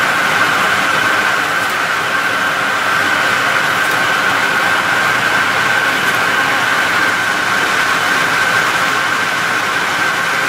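POLYTEK CBL 1000 bag-making and welding machine running in production: a steady mechanical din with a constant high whine. It cuts off abruptly at the very end.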